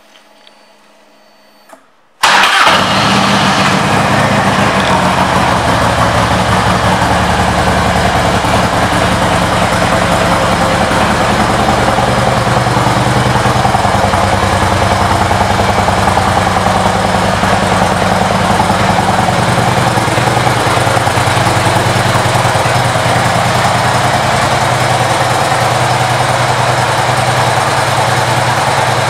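2006 Harley-Davidson Road King Classic's Twin Cam 88 V-twin, with an aftermarket exhaust, starting suddenly about two seconds in and then idling steadily.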